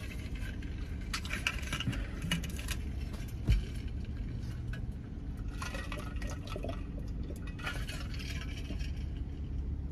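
Insulated metal water bottle being handled and drunk from: small clicks and clinks of its cap and metal body, one sharp knock about three and a half seconds in, and water sipped near the end. A steady low hum of the car cabin runs underneath.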